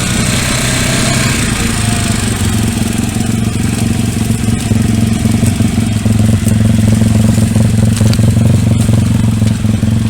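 Pit bike's single-cylinder engine running steadily under way, getting a little louder after about six seconds.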